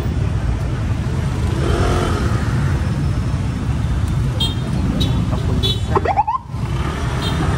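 Congested city-street traffic: idling and creeping car and motorcycle engines make a heavy steady rumble. A few short high-pitched peeps come in after about four seconds, and a rising squeal sounds about six seconds in.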